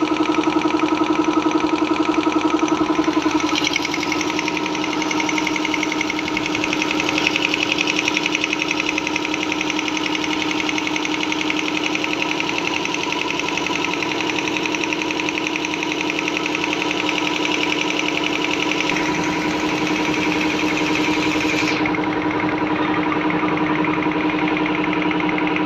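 A 3 hp three-phase air compressor running steadily, its pump giving a rapid, even knocking. It gets a little quieter about three and a half seconds in, and the higher hiss drops away about 22 seconds in.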